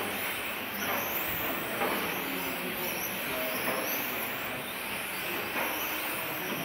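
Several 1/10 electric RC touring cars with 17.5-turn brushless motors racing: overlapping high-pitched motor whines rising and falling as the cars accelerate and slow through the corners, over a steady hall noise.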